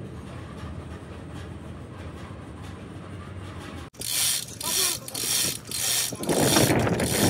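A steady low hum, then, after a sudden break about four seconds in, loud harsh rasping strokes repeating about twice a second, as from a hand tool working on metal.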